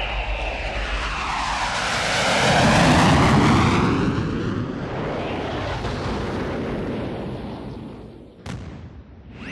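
Jet-powered land speed record car passing at high speed: loud jet engine noise swells to a peak about three seconds in, with a sweeping shift in tone as it goes by, then fades away. A single sharp crack comes near the end.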